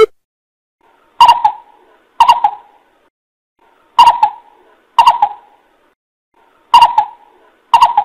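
Greater coucal calling: short nasal calls given in pairs about a second apart, each pair repeating roughly every three seconds.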